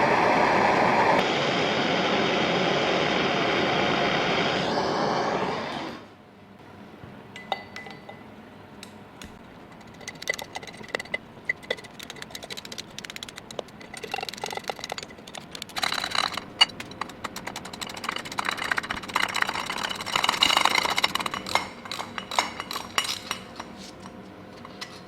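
A loud steady noise that cuts off sharply about six seconds in, then scattered light metallic clinks and clicks of hand tools working on a Ducati 916 engine.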